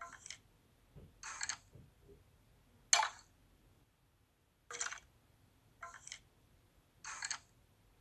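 Minecraft skeleton's bone-rattle sound effect: about six short, dry clacking rattles, one to two seconds apart, the loudest about three seconds in.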